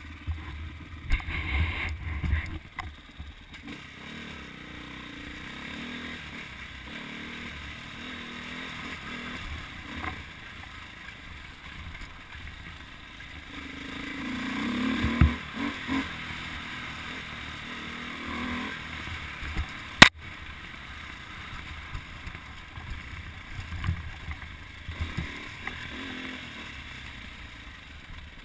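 Dirt bike engine running under varying throttle, heard from a helmet camera and swelling in the middle. A few low thumps near the start and in the middle, and one short, sharp crack about twenty seconds in.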